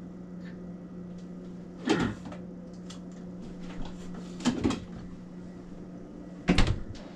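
Rummaging in a refrigerator: bottles and jars knocking and clinking as they are moved on the shelves, a few short clatters with the loudest near the end, over a steady low hum.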